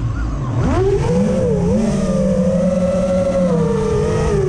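FPV quadcopter's brushless motors and propellers whining with the throttle. The pitch dips sharply about half a second in, then climbs and holds with small wavers. Underneath is a low rumble of wind buffeting the onboard microphone.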